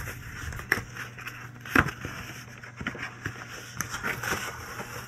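Packaging rustling and crackling with a few scattered knocks, the loudest about two seconds in, as a chainsaw bar is pulled out of its packaging.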